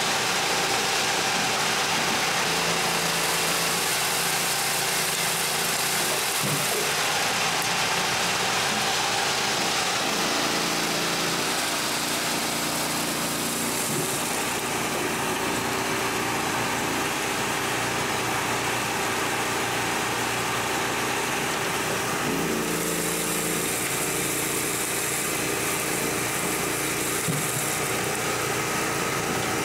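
A Craftex mini dust-collector blower runs steadily, blowing sawdust and wood chips out of a Hakki Pilke Raven 33 firewood processor's sawdust chute. Under it the processor keeps running, and a deeper machine tone comes and goes three times as it works through its cycles.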